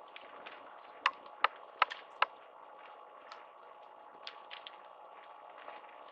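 Four sharp knocks in quick, even succession about a second in, then a few fainter ticks over steady room noise.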